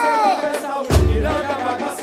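Samba-enredo played live by a samba school's singer and drum section: a held sung note slides down, and about a second in the low drums come back in.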